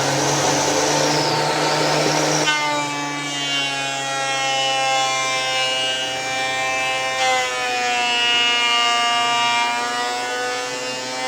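Makita 2012NB bench thickness planer running: a rough, noisy cutting sound for the first two and a half seconds, then a steady, high motor whine. About seven seconds in, the whine dips briefly in pitch and comes back up.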